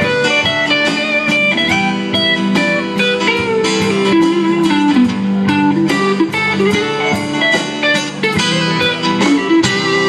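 Live country-rock band playing an instrumental passage: electric guitar lead with bending notes over strummed acoustic guitars, bass and a steady drumbeat, with no singing.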